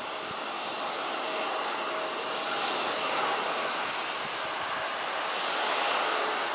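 Twin-engine jet airliner on final approach: a steady, even jet-engine roar with faint steady whining tones.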